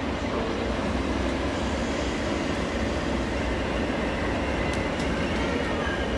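Class 37 diesel locomotive's English Electric V12 engine running with a steady low rumble as it hauls a train slowly along the track.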